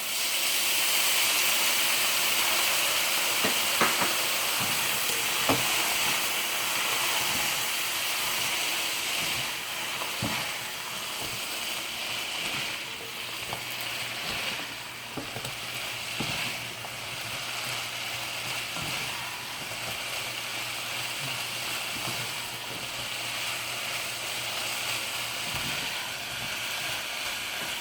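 Stir-fry of bitter melon and vegetables sizzling in a hot pan after a splash of water, loudest at first and then settling to a steadier sizzle. Occasional light clicks come from the spatula stirring.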